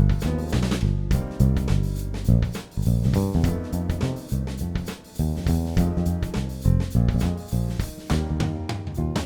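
Background music: a band track with guitar, bass and drum kit keeping a steady beat.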